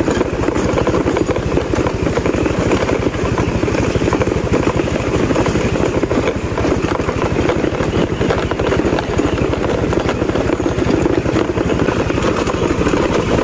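Motorcycle engine running steadily while being ridden, with a fast, even firing pulse.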